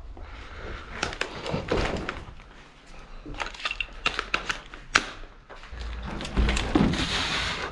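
Crunching and scraping footsteps on the broken plaster and debris of a ruined building, mixed with irregular clicks and knocks of gear handling. A single sharp crack about five seconds in, and a low rumble near the end.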